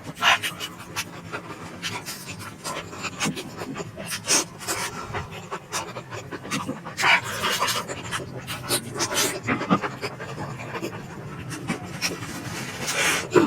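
Close-miked mouth sounds of eating spicy momo dumplings: wet chewing and smacking with irregular clicks, and a few louder breathy bursts about 4, 7 and 13 seconds in.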